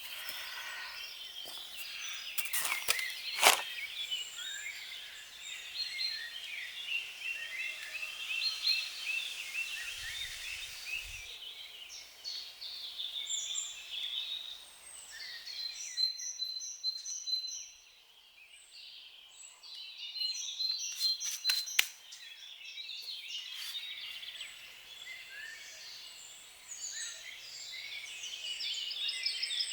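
Birds chirping and singing in many short, overlapping calls, with a few sharp clicks or knocks about three seconds in and again at about twenty-two seconds.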